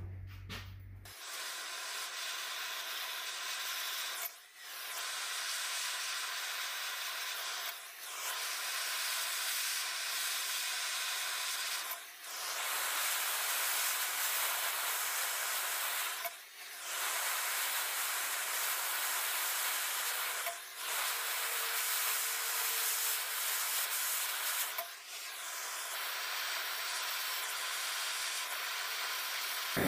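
MAPP gas hand torch burning with a steady hiss, preheating steel bottle-opener cutouts ahead of TIG welding. The hiss starts about a second in and dips briefly roughly every four seconds.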